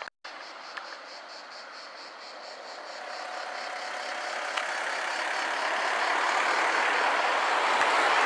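Road traffic at a roundabout, the tyre and engine noise of passing cars swelling louder over the second half. Insects, likely cicadas, pulse faintly and evenly in the background.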